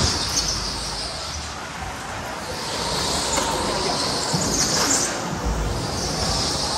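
Go-kart driven hard around an indoor track, heard from on board: a steady rush of running and wind noise, with tyres squealing in waves as it goes through the corners.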